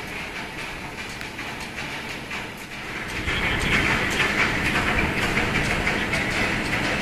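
Steady rumble of a motor ferry's engines under way, with water rushing along the hull and scattered light clicks. It gets clearly louder about three seconds in.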